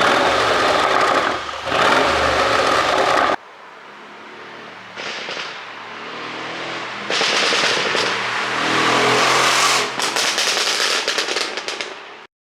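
Mercedes-AMG 5.5-litre twin-turbo V8 exhaust, tuned for overrun pops, running loud and then dropping abruptly to a quieter level after about three seconds. It revs up again and ends in a rapid string of sharp crackling pops as the throttle closes, the pop-and-bang effect of the ECU tune.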